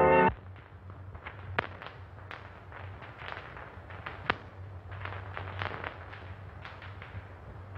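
Crackle and scattered sharp pops of a worn 1930s optical film soundtrack over a low steady hum, with no dialogue or music. The end of a brass music cue cuts off right at the start.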